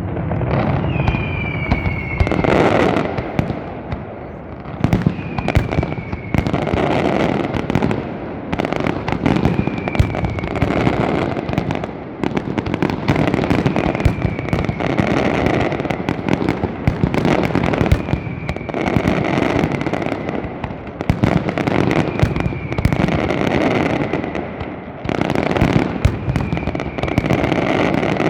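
Aerial fireworks display: a dense, continuous crackling and banging of bursting shells, with a short falling whistle about every four seconds.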